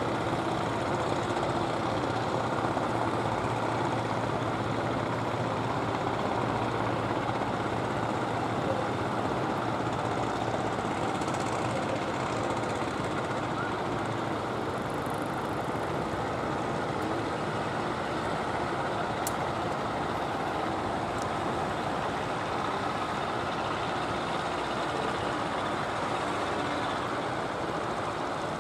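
A wooden fishing boat's inboard engine running steadily as the boat comes in, under a continuous wash of sea and wind noise. The engine's low hum is clearer in the first half and fades into the water noise later.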